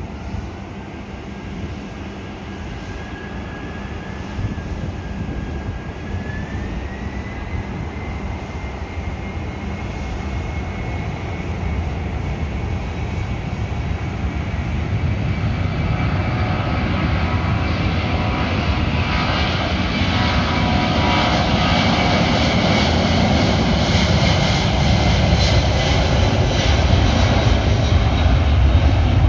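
Boeing 767-300ER freighter's twin General Electric CF6 turbofans spooling up to takeoff thrust: a whine climbs in pitch about six seconds in and then holds, while the engine noise grows steadily louder as the jet accelerates down the runway.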